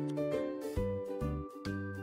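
Instrumental background music, with held notes over a short bass note that repeats about every half second.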